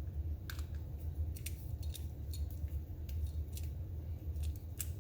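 Irregular sharp clicks and snips of a makeshift cutting tool being worked at an electrical lamp cord to cut the wire, over a steady low hum.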